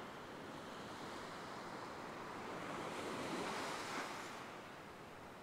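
Surf on a sandy beach: a steady wash of small waves that swells about three to four seconds in as a wave breaks, then eases off.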